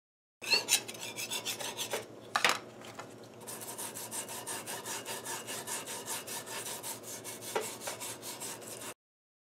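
Small hand wire brush scrubbing a milling-machine casting in rapid back-and-forth strokes, about five or six a second, scouring off paint residue softened by citrus stripper. A single sharper knock comes about two seconds in, and the scrubbing cuts off suddenly near the end.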